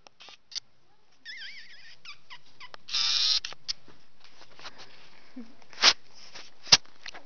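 A puppy at play, with high-pitched wavering squeaks about a second in and a louder squeal about three seconds in, among light scrabbling ticks. Two sharp clicks near the end.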